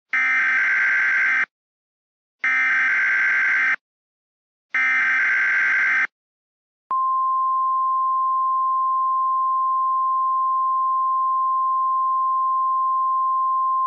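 Emergency Alert System SAME header: three short bursts of screeching digital data, about a second apart. About seven seconds in, a single steady alert tone starts (the 1050 Hz weather-radio alert tone), announcing an emergency alert message.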